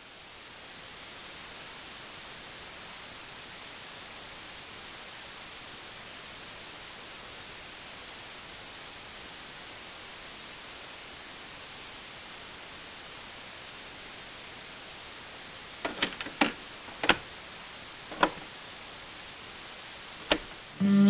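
Steady hiss of static, strongest in the upper range, fading in over the first second. About five seconds from the end, a handful of sharp pops crackle over it.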